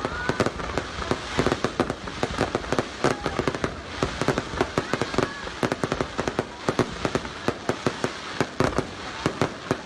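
Fireworks going off in rapid, irregular succession: many sharp cracks and bangs a second over a continuous crackling din.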